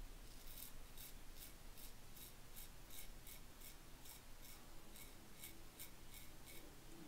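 Mulcuto slant safety razor scraping through lathered stubble in short, quick strokes, about four a second, each a faint rasp.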